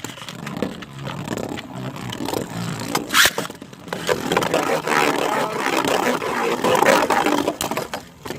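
Beyblade spinning tops whirring and scraping against each other and the plastic stadium in a battle, with a sharp clack of a hit about three seconds in. The grinding grows denser in the second half, then cuts off just before the end.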